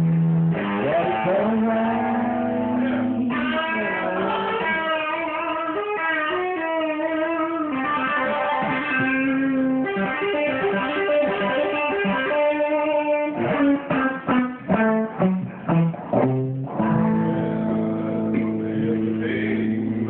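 Live band playing, with an electric guitar carrying a melodic line over bass and drums. About two-thirds of the way through the band breaks into a run of short, clipped stabs with gaps between them, then the held notes return.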